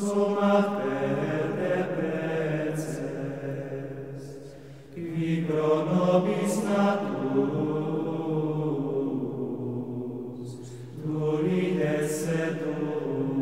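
Background music of slow, sustained vocal chant by low male voices, held in long notes. A new phrase begins about five seconds in and another about eleven seconds in.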